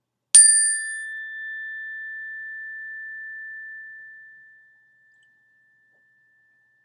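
A single struck high-pitched chime, ringing out with a steady tone and fading away over about four seconds.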